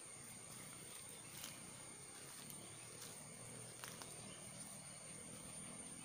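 Faint, steady, high-pitched insect drone, with a few soft crunches of footsteps on dry leaves.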